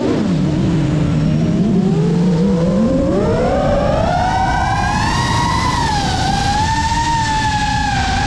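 FPV quadcopter's brushless motors whining. The pitch holds low for about three seconds as the throttle is eased off, then rises steeply to a high whine as the throttle comes up, and holds there with small wavers. Prop and wind noise rumbles underneath.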